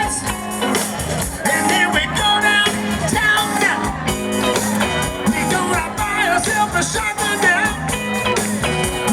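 Live soul band playing, with a singer and a horn section over a steady beat.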